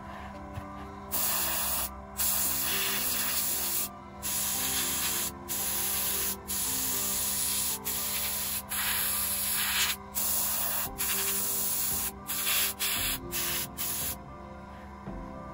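Gravity-feed airbrush spraying paint: a hiss of air and paint in short bursts of a second or so as the trigger is pressed and let go, about a dozen times.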